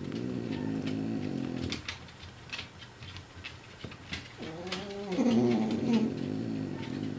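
A dog's low, drawn-out pitched sound for about two seconds, then after a pause a longer whine that bends up and down in pitch.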